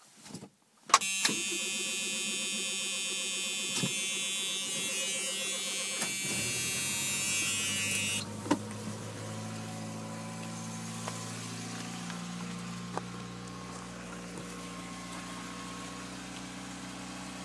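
1979 Plymouth Horizon TC3's 1.7-litre four-cylinder engine cold-starting after sitting a week near freezing: a short crank about a second in, and it catches at once and runs at a steady fast cold idle with a high whine. About eight seconds in the whine drops away and the engine idles on more quietly and evenly.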